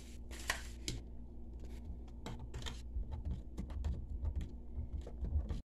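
Metal spoon stirring gelatin powder into hot milk in a plastic container, tapping its sides in irregular light clicks. The sound cuts off abruptly near the end.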